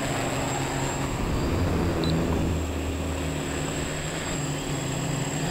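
Scratch-built electric quadcopter's motors and propellers buzzing in flight, their pitch shifting up and down as the throttle is worked.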